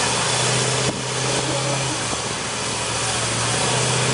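Pickup truck engines running hard under full load in a tug of war, the diesel Ford F-350 straining against the lifted Chevy: a steady engine drone under broad rushing noise. The level dips briefly about a second in.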